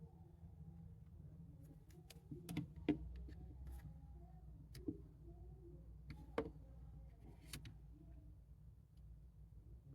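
A few scattered light clicks and knocks over a low steady hum, like small objects being handled.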